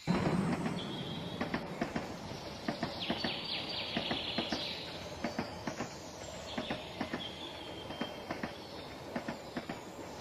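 Model train running along its track, its wheels clicking irregularly over the rail joints, growing slowly fainter.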